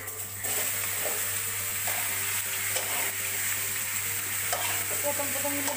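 Chopped bottle gourd hitting hot oil in an aluminium kadai: a loud sizzle starts suddenly about half a second in and carries on steadily as the wet pieces fry.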